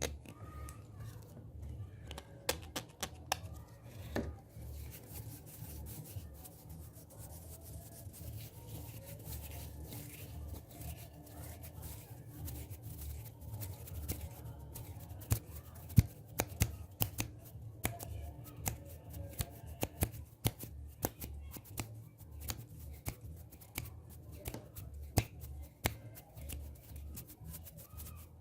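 ASMR hand sounds close to the microphone: hands rubbing with many sharp clicks and taps. The clicks come sparsely at first and thicker in the second half.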